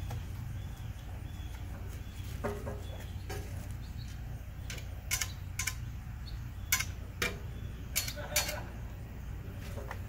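E6013 welding rod tapped and scratched against the steel step in a string of short, sharp clicks, about eight of them, as it tries to strike an arc that never catches. The rig isn't making a good connection.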